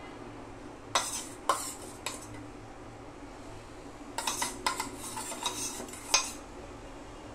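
A metal spoon clinking against dishes while spreading pizza topping: three sharp clinks in the first two seconds, then a run of lighter taps and scrapes and one more sharp clink near the end.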